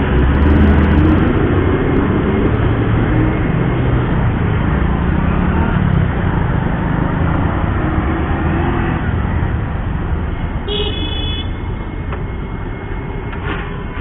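Motorcycle engine running while riding through city traffic, its pitch wavering with the throttle under steady road and traffic noise. A vehicle horn toots briefly about eleven seconds in.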